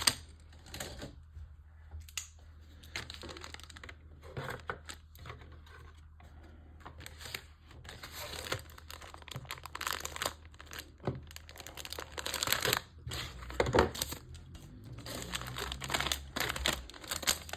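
Plastic model-kit parts and packaging being handled: irregular crinkling and rustling with scattered small clicks, and one louder knock about three-quarters of the way through.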